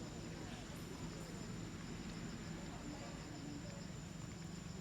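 Insects trilling steadily, with an evenly pulsed chirring and a high continuous whine, over a low steady hum.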